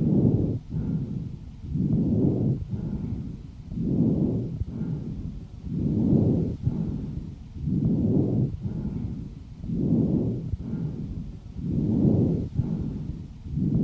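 Harsh breathing (rough vesicular breath sounds) heard over the lungs through a stethoscope: regular breaths about every two seconds, the expiration lengthened to about as long as the inspiration. This kind of breath sound is typical of bronchospasm or swelling of the bronchial mucosa, though it can also be normal over the apex of the right lung.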